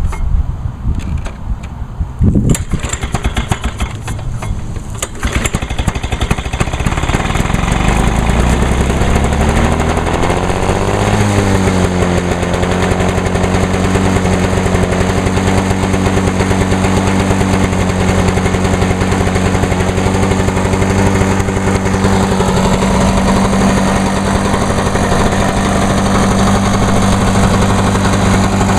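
1986 Lawn-Boy 8461 Commercial mower's two-stroke engine sputtering and firing unevenly as it catches on choke, picking up speed about ten seconds in, then settling into steady running now that fuel reaches the carburettor.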